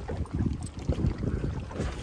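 Wind buffeting the microphone aboard a fishing boat at sea, an uneven low rumble that surges and drops.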